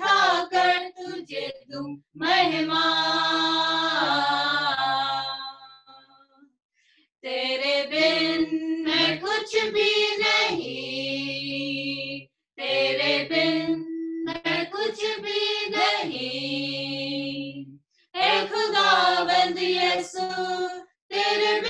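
A family's voices singing a Hindi/Urdu Christian worship song a cappella, mostly women's voices together, heard over a video call. The singing comes in phrases with short pauses, a longer pause about six seconds in.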